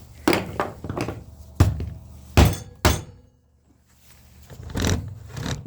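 A series of sharp knocks and thunks, about seven of them with the loudest two close together in the middle: scrap computer parts and cords being handled and set down.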